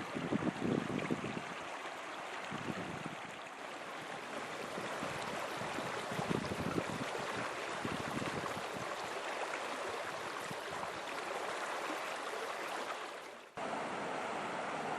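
Flowing water rushing steadily, with a few louder splashing swells in the first half. It dips briefly about thirteen seconds in, then comes back abruptly.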